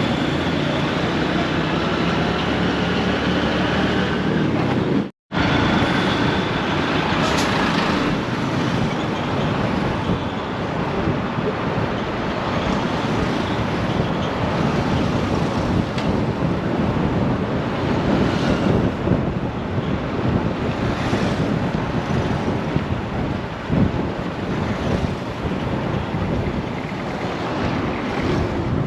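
Steady road traffic with engines running, under wind buffeting the microphone. The sound cuts out for a split second about five seconds in.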